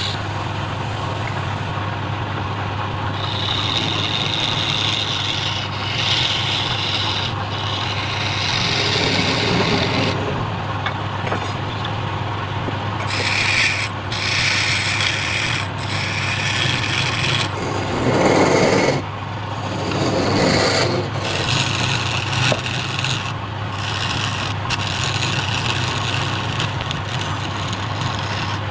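Wood lathe running with a steady hum while a flat turning tool scrapes the spinning wooden workpiece, giving hissing stretches of a few seconds that start and stop as the tool is pressed in and eased off. A rougher, lower scraping comes about two-thirds of the way through.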